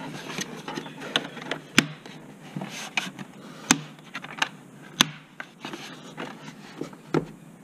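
Hard plastic airbox cover being handled and pressed back onto the airbox: irregular plastic clicks and knocks, three of them sharper and louder, spread through.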